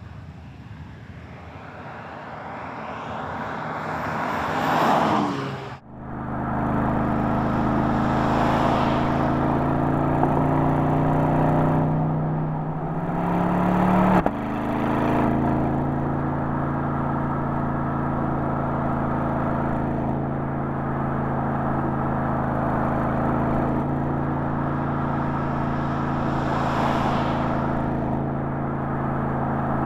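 Porsche Panamera 4 E-Hybrid's twin-turbo V6 approaching and passing close by, its pitch falling as it goes past. Then the engine runs at a steady speed, its note rising under acceleration for about two seconds before dropping sharply at an upshift, and then holds a steady cruise.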